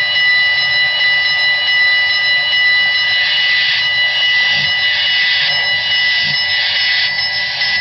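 Sound decoder of an HO-scale Broadway Limited Paragon 4 Southern Pacific GS-4 model steam locomotive sounding a long, steady whistle over a steady hiss.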